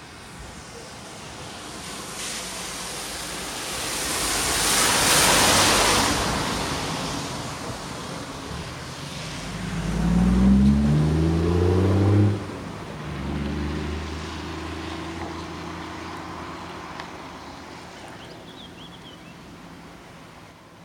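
Road traffic on wet tarmac: a vehicle's tyres hiss as it passes, swelling and fading about five seconds in. Then an engine climbs in pitch as it accelerates, cuts off abruptly, and settles into a steadier drone that fades away.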